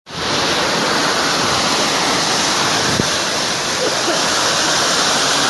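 Floodwater rushing, a loud steady roar of fast-moving water.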